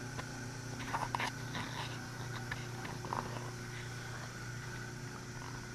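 Steady machine hum with a low tone, overlaid with a faint hiss and scattered light clicks and taps.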